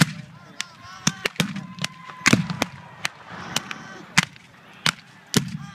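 Scattered black-powder musket fire, blank rounds, about ten sharp cracks at irregular intervals with no steady rhythm, some close and some further off.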